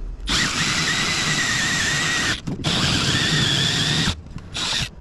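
A power drill running a 3.5-inch hole saw through fiber cement siding, a steady whine over the grinding of the cut. It runs in three bursts: a long one, a second after a brief stop, and a short one near the end.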